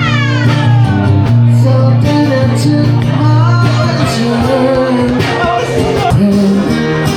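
Music with a male voice singing over guitar and a steady bass line.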